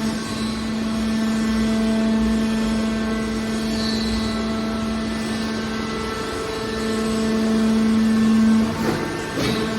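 Hydraulic metal press baler running, its power unit giving a steady hum, with a brief clatter near the end.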